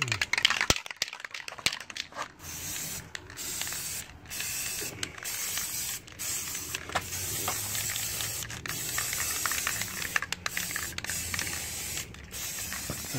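Aerosol spray paint can hissing as gray paint is sprayed over masked model parts, in long bursts broken by brief pauses every second or two.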